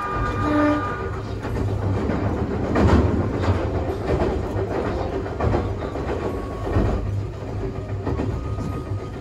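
Nagano Electric Railway 1000 series 'Yukemuri' electric train (ex-Odakyu Romancecar) running at speed, heard from its front observation seats: a steady low rumble with the wheels knocking over rail joints now and then. A brief tone sounds right at the start.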